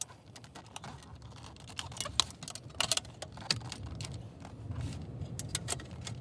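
Flathead screwdriver clicking and scraping against the sheet-metal case of a car CD player as its top plate is pried off its friction clips. Irregular light metallic clicks, with the sharpest a little after two seconds and near three seconds.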